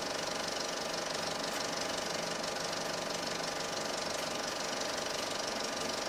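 A small machine running with a fast, even mechanical clatter and a steady hum.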